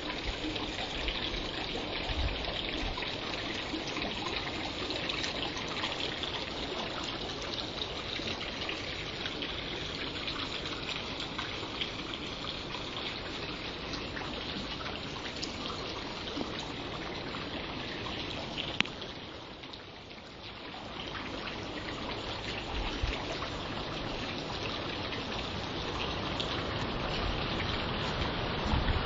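Steady wind noise rushing through foliage, with the occasional gust buffeting the microphone. The noise dips briefly about two-thirds of the way through, then builds again.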